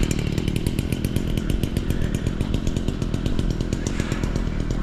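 Chainsaw engine idling steadily with a fast, even pulse.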